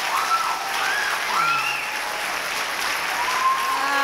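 Audience applauding at the end of a musical number, with a few cheers rising over the clapping.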